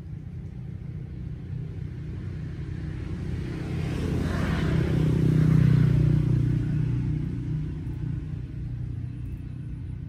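An engine passing by: a steady low hum that grows louder to a peak about halfway through, then fades away.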